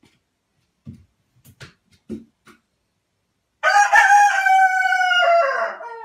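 Rooster crowing: one long crow starting about three and a half seconds in, holding its pitch and then stepping down near the end. A few soft taps come before it.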